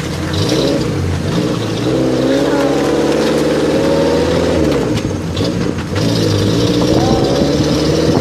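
An off-road vehicle's engine revs under load, its pitch rising and falling as the throttle is worked, with a steady hiss over it.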